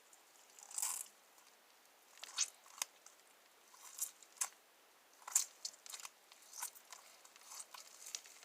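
Homemade slime being squished and handled, giving faint, irregular short wet crackles and clicks, about a dozen spread over several seconds.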